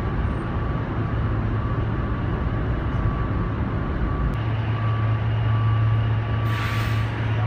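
Steady drone of the Schulpengat car ferry's engines and machinery heard from inside the ship, a low hum under a faint high whine. The hum grows stronger about four seconds in, and a short hiss comes near the end.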